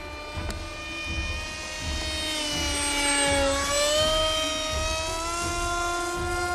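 Electric motor and propeller of a radio-controlled foam model jet in flight, a steady whine that sags in pitch about three and a half seconds in, then climbs and holds higher as the throttle comes up.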